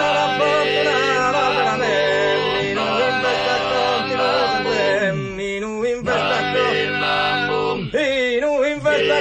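Background music: male singing in a chant-like style, a lead voice moving over steady held drone tones, with the low drones dropping out briefly twice.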